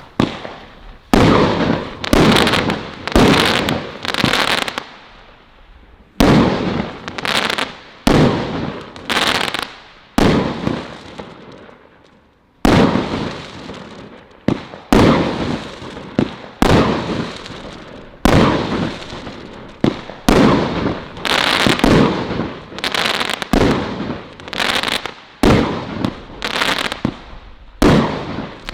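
A 25-shot, 25 mm firework cake (Celtic Fireworks Colour Crackles) firing shot after shot, about one a second. Each shot is a sharp report followed by a fading crackle. There are two brief lulls, about five and eleven seconds in.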